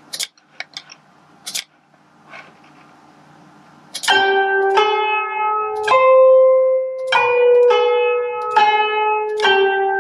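A few sharp clicks, then from about four seconds in the notation software plays back a short Hüzzam melodic phrase in a plucked, zither-like instrument sound. The phrase runs to about seven notes at an even pace, the third note held longer.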